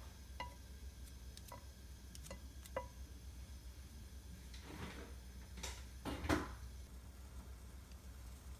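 Kitchenware being handled: four light clinks with a short ringing tone, then two louder clatters about five and six seconds in, the second the loudest.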